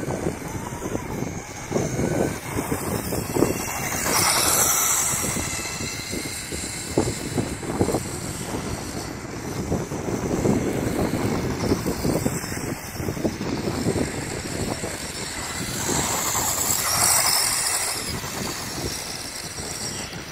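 Wind buffeting the microphone, with a battery-electric RC buggy with a brushless motor running on rough asphalt. Its whir and tyre noise swell twice, about four seconds in and again near the end.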